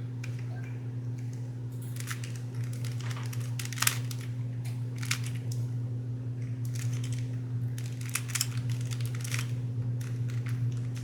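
Classic stickered Rubik's brand cube being turned by hand: irregular plastic clicks and scraping as stiff layers are forced round, with a sharper clack about four seconds in. A steady low hum runs underneath.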